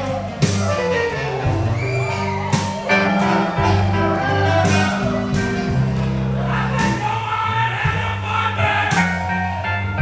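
Live blues band playing: upright bass, saxophone and drums, with cymbal crashes about every two seconds.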